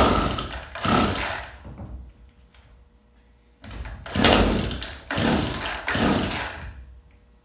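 Two-stroke chainsaw engine catching and running for about two seconds before dying, then catching again for about three seconds and dying again: after a carburetor clean without a rebuild kit, it wants to run but does not keep going.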